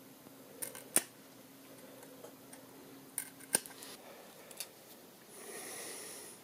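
Sharp clicks and taps from a small screwdriver working the aluminium end cap of a DRO glass scale, the loudest about a second in and another pair around three and a half seconds. A short hiss near the end.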